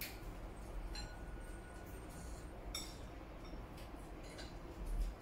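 Chopsticks clicking and clinking against ceramic bowls while eating: a few light clinks, two of them, about a second in and near three seconds in, ringing briefly.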